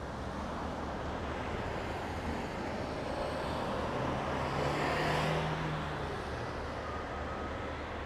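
Steady outdoor traffic and machinery hum with a low drone. A motor vehicle passes close by, swelling to its loudest about five seconds in and then fading.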